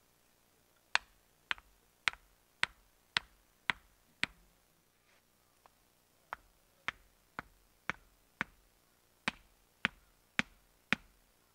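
Small hatchet striking short wooden stakes into the ground beside a row of logs: sharp knocks about two a second, in three runs with two short pauses.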